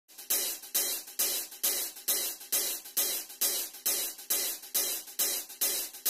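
Background music: a steady beat of sharp, hissing percussion hits, about two a second, with no other instrument yet.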